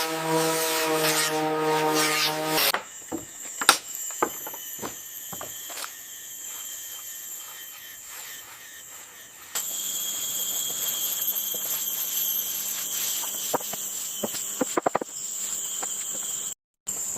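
A power tool runs with a steady hum for nearly three seconds, then cuts off abruptly. Insects chirp steadily after it, with scattered clicks and light taps, and the chirping gets louder after a second cut about ten seconds in.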